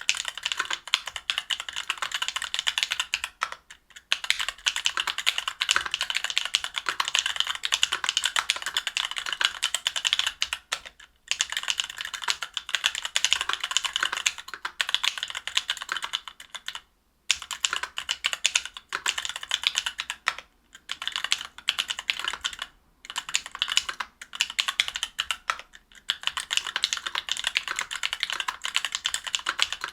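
Continuous fast typing on a mechanical keyboard with stock Alphakeys Blue Dusk Panda 62 g linear switches, an aluminium plate and GMK keycaps: dense key clacks with short pauses every few seconds.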